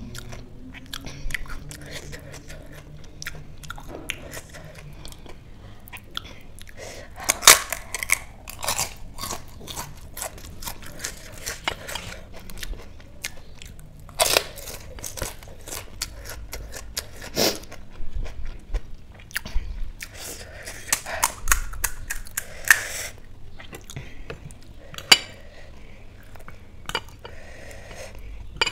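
Close-up crunching and chewing of pani puri: the crisp hollow puri shells crack as they are bitten, followed by irregular chewing crackles, with the loudest crunches a few seconds apart.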